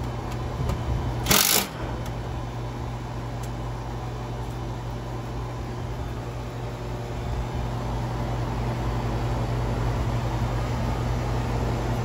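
A Milwaukee Fuel cordless drill/driver runs in one short burst about a second and a half in, driving a screw to mount a new condenser fan capacitor. Under it, a steady low hum.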